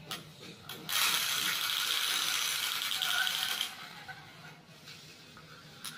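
Clockwork gears of a plastic wind-up toy horse rattling in a fast, even buzz for nearly three seconds, starting about a second in, with a few light clicks around it.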